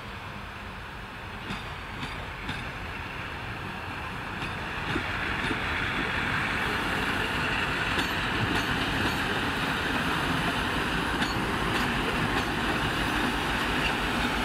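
TEP70BS passenger diesel locomotive running light, its diesel engine growing louder about five seconds in as it comes close and passes, then holding steady, with a few faint clicks from the wheels on the track.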